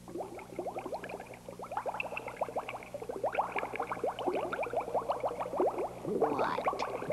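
Rapid bubbling and gurgling, a dense run of quick chirping sounds that grows a little louder toward the end.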